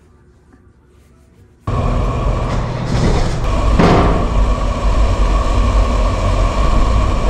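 Quiet at first, then, a little under two seconds in, the loud steady running noise of a 1997 Land Rover Defender heard from inside its cab takes over, heavy in the low end. There is a brief louder clunk about two seconds later.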